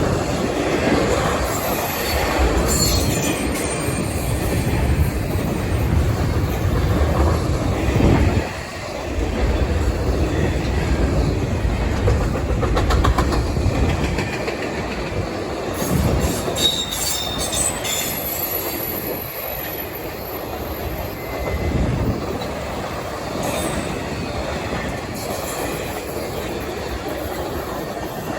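Freight train rolling past, its cars rumbling and clattering over the rail joints, with a high-pitched wheel squeal now and then.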